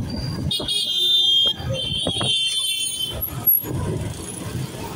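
Busy street traffic heard from a moving vehicle, with a shrill high-pitched tone sounding twice in quick succession in the first half.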